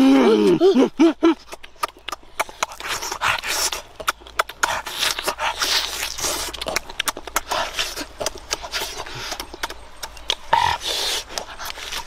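Close-up chewing and lip-smacking of roast chicken: a dense, irregular run of wet clicks and smacks. It opens with a few short 'mmm' hums of enjoyment that rise and fall in pitch.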